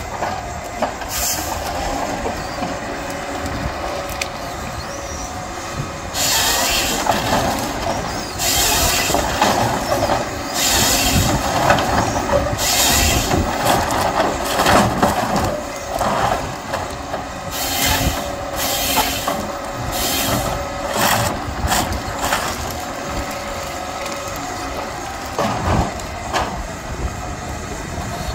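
John Deere 1270 harvester's diesel engine and hydraulics running steadily while its SP 661 harvester head processes a stem. From about six seconds in there are repeated harsh bursts of noise, each about a second long, as the head feeds, delimbs and cuts the stem into logs.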